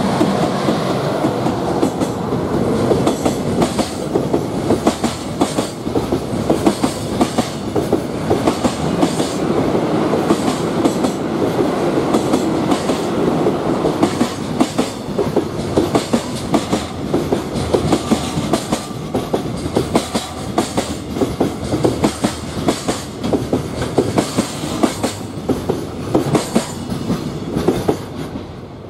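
Container freight train passing close by, behind an EH200 electric locomotive: the wagons' wheels clatter over the rail joints in a rapid, steady run of clicks over a continuous rumble. The clatter drops away near the end as the last wagon passes.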